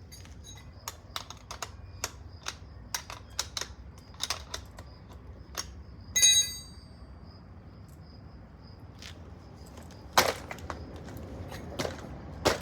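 Irregular light clicks and taps of metal bicycle parts being handled as a rear wheel is worked free of the frame, with one short metallic ring about six seconds in and a few louder knocks near the end.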